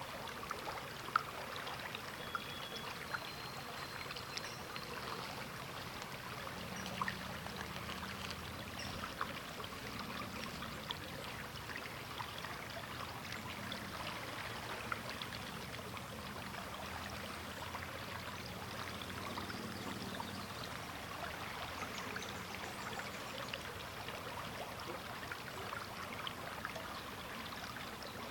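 River water flowing: a steady rush with many small splashes and gurgles running through it.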